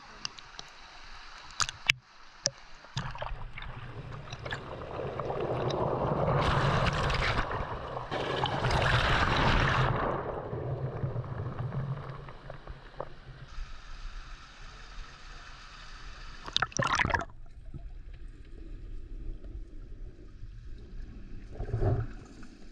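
Pool water sloshing and gurgling around a camera at the surface, with a louder stretch of rushing, splashing water in the middle. Later it turns duller as the camera goes under water, with a couple of sharp knocks.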